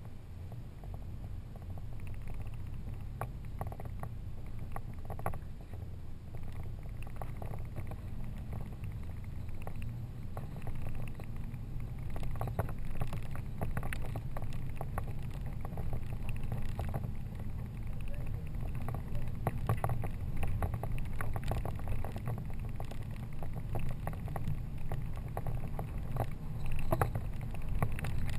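Toyota Tacoma pickup's engine running steadily under load on a rough uphill dirt track, growing gradually louder, with gravel and stones crunching and knocking under the tyres.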